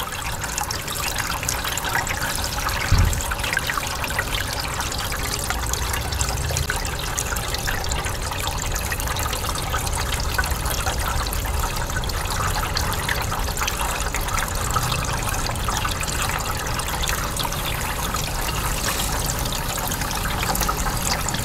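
Water trickling steadily across the flat surface of a Miller gold-recovery table, with light splashing as a paintbrush is worked through the thin film of water.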